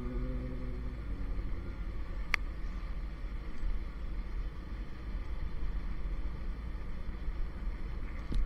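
Motorcycle riding along, its engine running under a steady low rumble of wind on the microphone, with a short steady tone in the first second and a single sharp knock about two and a half seconds in.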